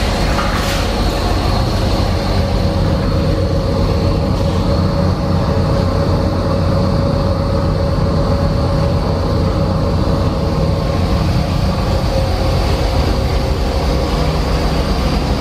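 Steady low rumbling drone of a car ferry under way, its engines and hull noise heard from inside the ship, with a constant hum and a faint high whine on top.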